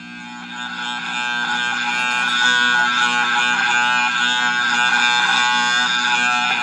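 A musical instrument holding several notes at once. The sound swells in over the first couple of seconds, holds steady, and eases off near the end. It is heard played back from a vinyl record through a loudspeaker.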